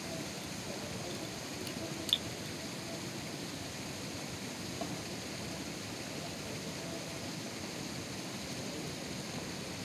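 Steady background hiss with a faint low murmur, and one sharp click about two seconds in.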